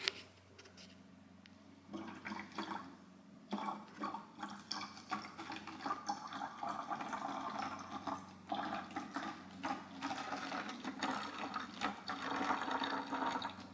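Liquid sloshing and splashing as a spoon stirs it in a glass measuring jug, with irregular clinks of the spoon against the glass; near the end the liquid is poured out. A sharp click at the very start.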